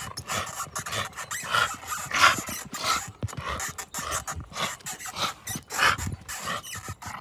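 A dog making a rapid, irregular run of short, breathy vocal sounds, several a second.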